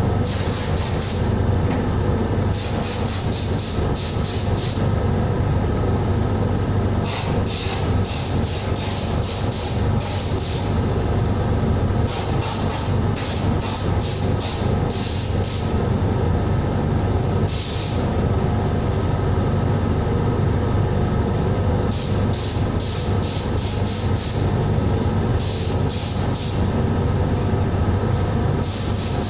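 An air compressor runs steadily with a constant low hum. Over it come repeated bursts of pulsing, high-pitched hiss from a sandblasting gun being triggered on and off, each lasting from under a second to a few seconds.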